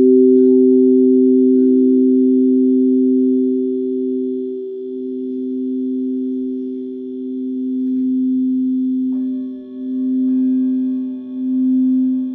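Singing bowls ringing in long sustained tones, two low notes that slowly swell and fade against each other. About nine seconds in, another, higher-pitched bowl is struck and rings on over them.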